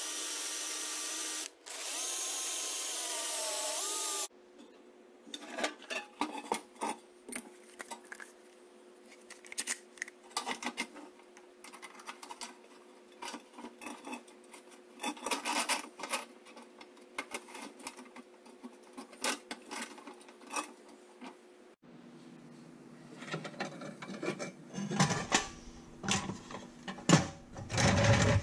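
A drill running in two short spells, the pitch wavering in the second. Then many light clicks and clatters of metal as the wheels, steel axles and pressed-steel body of an old Tonka toy dump truck are handled and fitted together, louder near the end.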